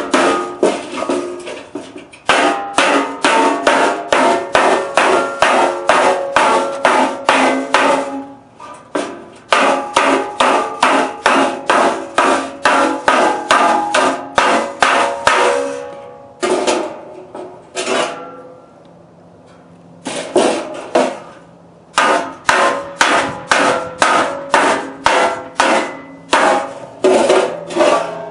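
Hammer blows on a stainless steel chimney cap, bending the sheet metal: quick strikes about three or four a second with a metallic ring, in runs of several seconds broken by short pauses.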